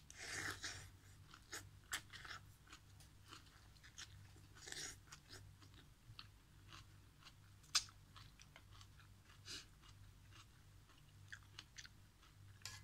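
Close-up eating sounds of instant noodles and leafy greens: a slurp of noodles at the start and another near five seconds, with wet chewing clicks and crunches in between. A single sharp click stands out a little before eight seconds.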